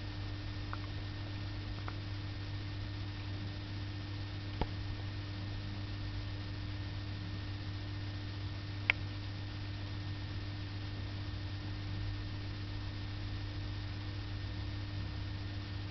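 Steady low electrical hum over faint hiss, with a few faint clicks; the sharpest click comes about nine seconds in.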